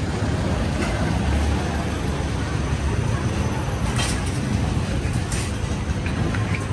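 City street traffic: a steady low rumble of passing vehicles, with a couple of brief sharp rattles about four and five seconds in.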